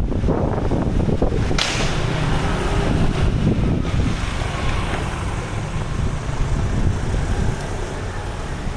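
Wind buffeting the microphone in a steady low rumble. About a second and a half in, a sudden rush of noise starts and fades over the next couple of seconds.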